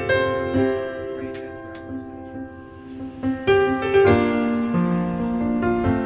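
Background music played on a keyboard, with sustained chords that change every second or so.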